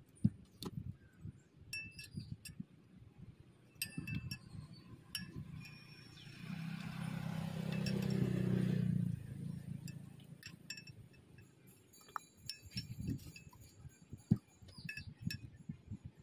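Glasses and utensils clinking in short, scattered taps while drinks are made. A louder rushing noise swells for about three seconds midway and then stops.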